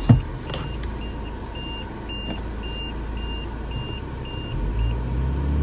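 A Mahindra Scorpio's diesel engine idling, heard from inside the cabin, while a dashboard warning chime sounds a rapid string of short beeps that stops about four seconds in. There is a sharp knock just after the start, and near the end the engine revs rise as the launch is readied.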